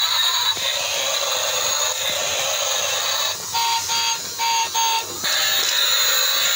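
Battery-operated transforming robot car toy driving along, its small motor and plastic gears making a steady whirring hiss. About three and a half seconds in its sound chip gives four short electronic beeps. From about five seconds on a steady high electronic tone takes over as the car begins to unfold into a robot.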